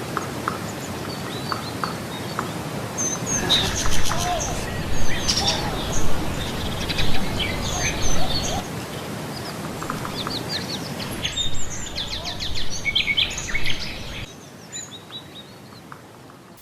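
Several birds chirping and trilling over a steady outdoor background noise. The calls thin out and the sound drops away near the end.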